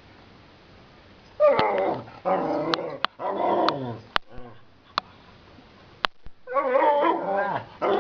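A dog making drawn-out whining, yowling calls that bend up and down in pitch: a run of three calls from about a second and a half in, then more from about six and a half seconds. A few sharp clicks fall in the gap between them.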